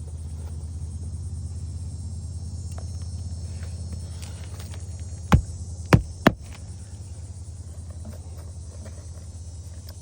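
Three sharp nailing knocks in quick succession about halfway through, as nails are driven to fasten a new asphalt roof shingle, over a steady low hum.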